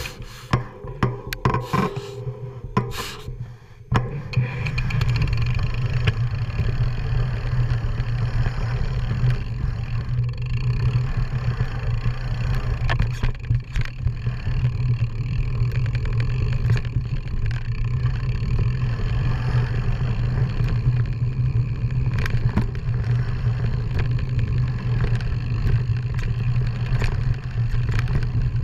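Off-road motorcycle engine running steadily as it rides a rough trail, with scraping and clattering from the bumpy ground. The engine drops off briefly about four seconds in, then picks up and holds a steady hum.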